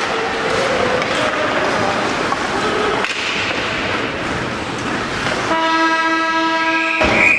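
Hockey rink noise with crowd chatter. About five and a half seconds in, a horn blasts steadily for about a second and a half, and a high, steady whistle blast starts as the horn ends.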